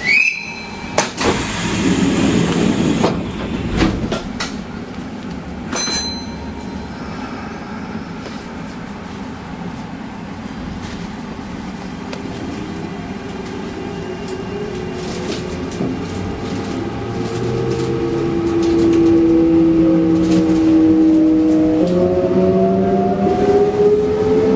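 Kintetsu 1252 series electric train pulling away: a few clunks in the first seconds as the doors shut, then the VVVF inverter's whine rising in pitch as several tones together while the train accelerates, with a step up in the tones about 22 seconds in.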